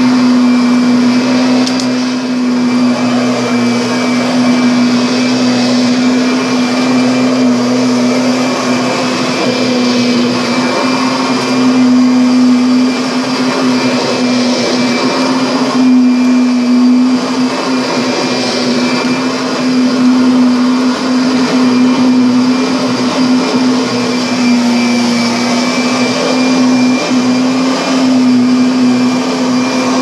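Vacuum cleaner running continuously as its floor head is pushed over carpet: a loud, steady motor hum over a rush of airflow, its pitch wavering slightly with the strokes.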